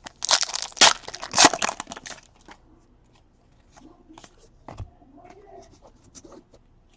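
Crinkling and tearing of a trading-card pack's wrapper for about two seconds, then quieter rustles and taps of cards being handled.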